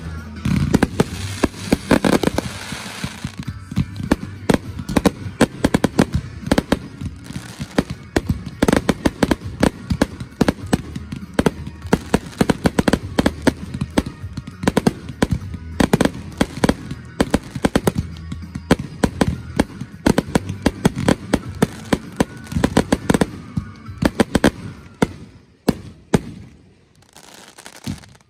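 Finale barrage of aerial firework shells going off in fast succession, dozens of sharp bangs and crackles close together. The barrage thins out and fades to near quiet shortly before the end.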